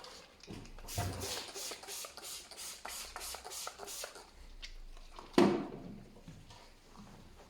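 Quick, evenly repeated rubbing or scrubbing strokes, about three a second, that stop after about three seconds, followed by a single loud knock.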